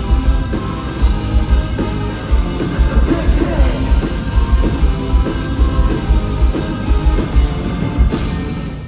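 Live rock band playing loud, with heavy drums, guitars and bass and some singing; the song winds down in the last second.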